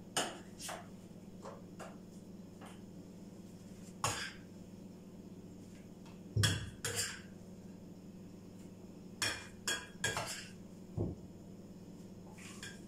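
A spoon knocking and clinking against a food processor bowl and a plate while ground falafel mixture is scooped out: irregular sharp taps, the loudest about six and a half seconds in, over a steady low hum.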